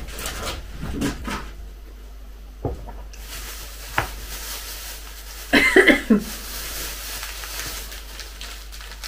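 A thin clear plastic bag rustles and crinkles as it is handled and a wrapped snack is pulled from it, with a few sharp clicks. A short, louder sound comes about five and a half seconds in.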